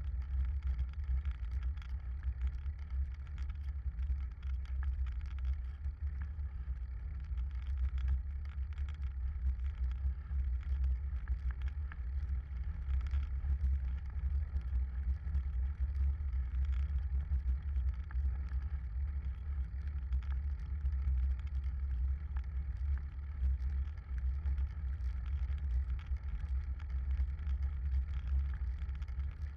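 Steady low rumble of wind buffeting the microphone of a camera on a moving bicycle, mixed with faint road noise.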